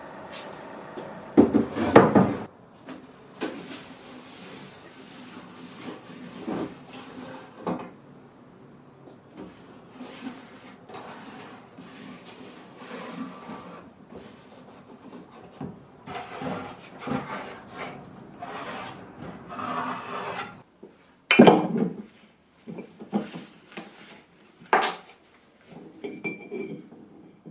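Irregular scraping and rubbing on wood by hand, with a few loud knocks about two seconds in and again about two-thirds of the way through.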